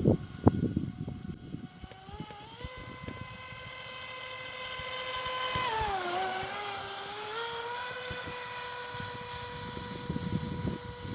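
Black Marlin RC boat's brushless electric motor whining at a high, steady pitch as it runs on the water. The whine drops in pitch twice, briefly about two seconds in and longer around the middle, then climbs back. It is loudest around the middle.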